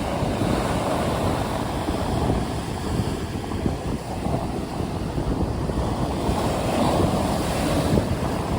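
Sea surf breaking continuously in stormy conditions, with wind rumbling on the microphone; the wash swells a little near the end.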